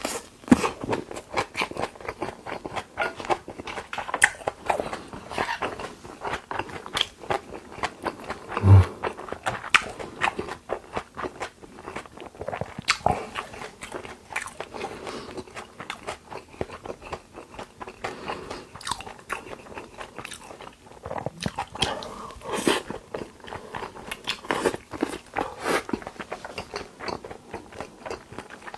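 Close-miked eating of Korean raw beef (yukhoe): wet chewing and biting with frequent irregular mouth clicks, and one louder thump about nine seconds in.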